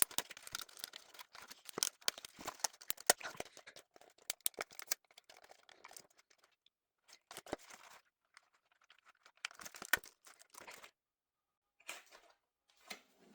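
Doll packaging being handled and pulled apart: crackling, tearing and crinkling of cardboard and plastic with sharp clicks, busiest in the first few seconds, then in short bursts with pauses between.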